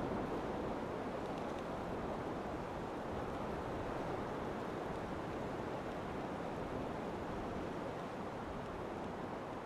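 Steady, even rushing noise with no distinct sounds in it, easing slightly near the end.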